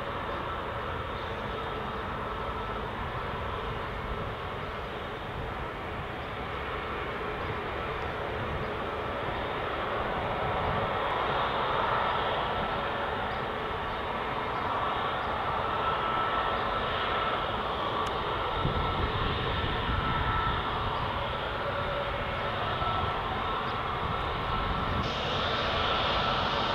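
Airbus A320neo's Pratt & Whitney PW1100G geared turbofan engines running up for takeoff: a continuous jet rumble with a steady high tone, growing louder about a third of the way in.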